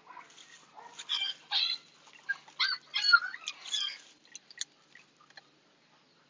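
A six-week-old Husky puppy gives a quick string of short, high yelps and whines, which stop about four seconds in.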